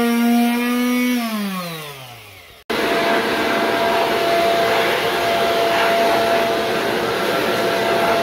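Electric palm sander running steadily on the engine cover, then switched off about a second in, its pitch falling as it winds down to a stop. After an abrupt change, a loud, steady machine rushing noise with a faint steady whine takes over and is the loudest sound for the rest of the time.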